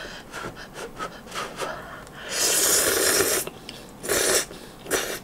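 Instant ramen noodles slurped from chopsticks: faint small clicks at first, then a long slurp a little past two seconds in and two short slurps near the end.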